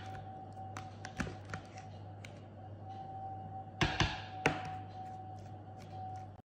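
A metal spoon and a plastic food tub being handled: light taps and clicks, then a few louder knocks of the tub about four seconds in, over a steady low hum. The sound cuts off suddenly near the end.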